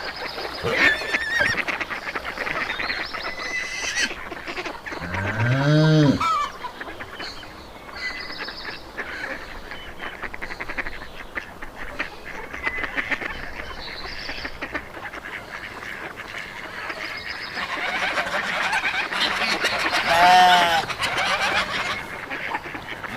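Farmyard poultry calling continuously, with geese honking prominently. There is a louder, lower call about five seconds in and a run of repeated honks near the end.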